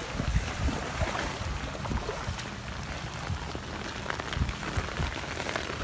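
Heavy rain falling steadily, with irregular low knocks mixed in.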